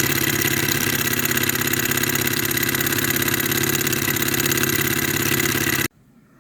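Microcosm model Rider-Ericsson hot-air engine running with a fast, even mechanical beat, cutting off abruptly near the end. By the owner's account it runs too fast because its water pump is not pumping.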